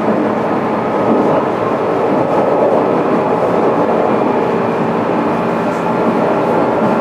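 Steady hum and rush inside the car of a JR East 205-series electric train (motor car MoHa 205-612), holding an even level with a few constant tones and no rising or falling pitch.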